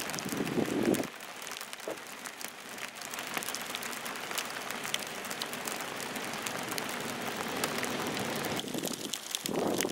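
Freezing rain and sleet pellets falling on an ice-glazed car body: a steady hiss scattered with many small sharp ticks. A brief low rumble comes in the first second.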